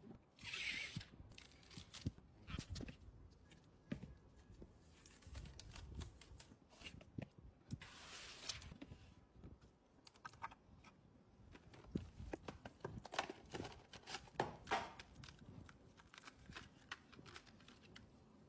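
Computer parts and their packaging being handled: scattered light clicks and taps, with two short rustling bursts, one about half a second in and one about eight seconds in.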